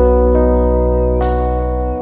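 Instrumental background music: held chords over a steady low bass note, with new notes chiming in during the passage.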